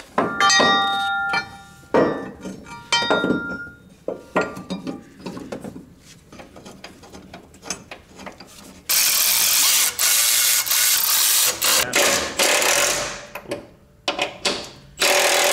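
Steel engine-mount bracket clanking and ringing as it is handled, then a ratchet running the mount bolts in with a fast, steady clicking for about three seconds, starting again just before the end.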